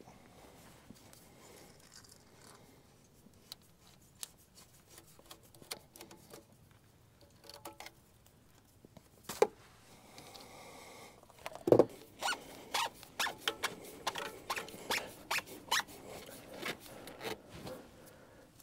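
Clicks, scrapes and knocks of a diesel truck's fuel filter assembly being worked off by hand. There is a sharp click about halfway through, then a single louder knock, then a run of quick, irregular clicks and rattles.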